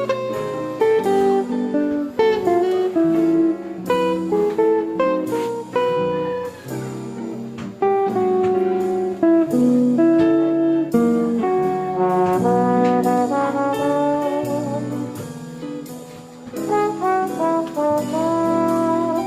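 Background music: an upbeat jazzy tune with brass and guitar, playing at a steady loud level.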